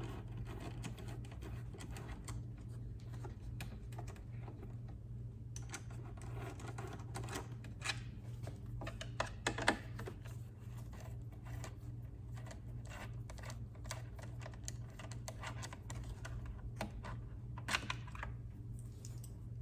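Irregular light clicks and ticks of a T25 Torx screwdriver backing out the screws that hold a BMW K1600's front speaker pod, over a steady low hum.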